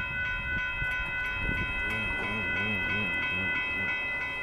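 Railroad grade-crossing warning bell ringing in a rapid, even series of high dings while the crossing gates lower. A low wavering sound rises and falls in the middle.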